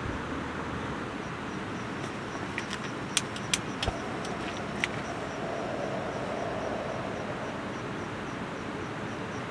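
Several sharp clicks, about two and a half to five seconds in, from a lighter's igniter being sparked to light a small gas lantern. Under them runs a steady hum of distant traffic.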